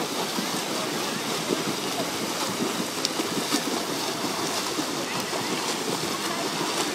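Freestyle swimmers splashing through pool water: a steady churning wash of arm strokes and kicks slapping the surface.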